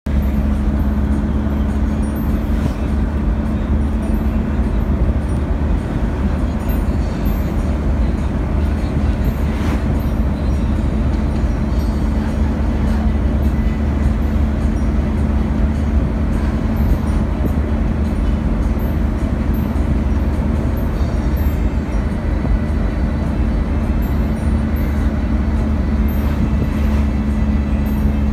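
Steady engine and road noise heard from inside a moving vehicle, an even low drone with a constant hum and no breaks.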